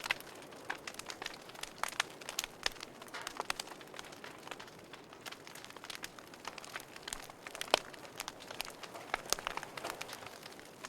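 Wood fire crackling in a fireplace: irregular sharp pops and snaps over a soft steady hiss, with one louder pop a little past the middle.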